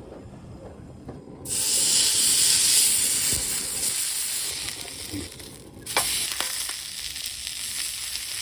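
Food sizzling in a hot pan: a loud hiss that starts suddenly about a second and a half in and eases off after a click near six seconds.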